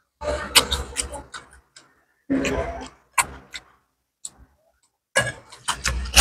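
Close-miked chewing and lip-smacking of fried gourami eaten by hand: irregular clusters of wet clicks, with short silent gaps between them.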